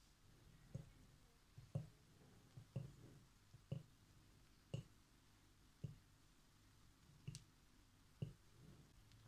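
Faint, soft knocks of a mixing utensil against the bowl, about one a second, as flour is gently folded into whipped egg and sugar for sponge-cake batter.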